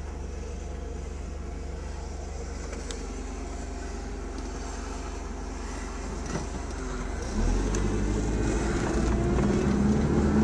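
Car engine and road noise, a steady low rumble that gets louder about seven seconds in, its pitch rising as the car speeds up.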